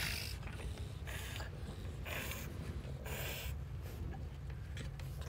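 Two dogs play-wrestling, with four short, noisy breaths or huffs about a second apart.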